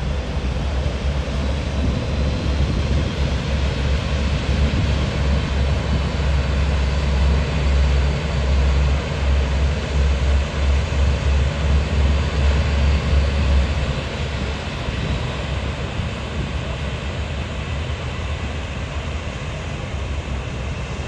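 Austal 47.5 m high-speed catamaran ferry's engines running as it manoeuvres: a heavy low rumble with a faint high whine, loudest while its stern points toward the listener, then easing off about two-thirds of the way through as it turns away.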